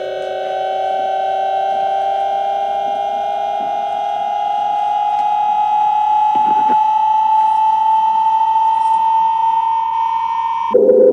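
Electronic science-fiction sound effect: several steady tones layered under one that rises slowly in pitch the whole time. It stops abruptly near the end, and a lower, different synthesizer sound takes over.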